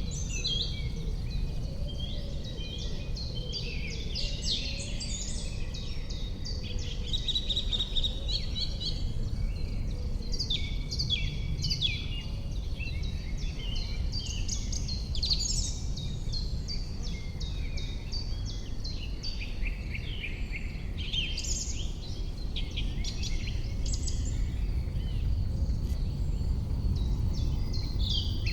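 Many songbirds singing and calling at once, a dense chorus of short chirps and trills, over a steady low rumble of background noise by a river.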